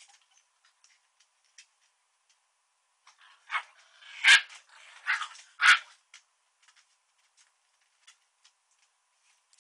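A dog barking during a play-fight with another dog: four short, sharp barks in quick succession about midway through, with faint scattered clicks before and after.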